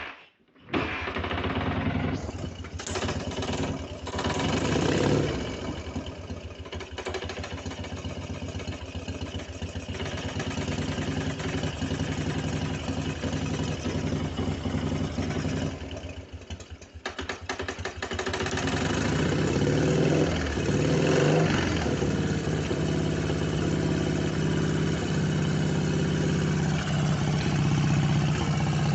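An engine starting just under a second in and then running with a fast, even knocking tick, the engine knock the owner is showing. It dips briefly past the middle, then runs louder and steadier.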